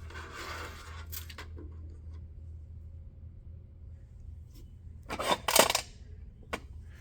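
Small metal carburetor parts clinking and clattering as they are handled: a few light clicks in the first second and a half, then a louder cluster of clatters about five seconds in and one more click after it, over a steady low hum.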